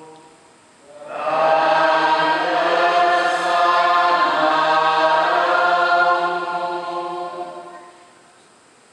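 A group of voices singing a liturgical chant together, starting about a second in, held for several seconds largely on steady pitches, then fading out near the end.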